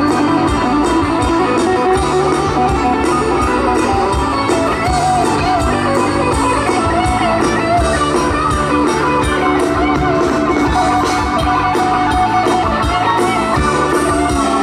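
Live band music: an instrumental passage with a lead guitar line over bass and a steady drum beat.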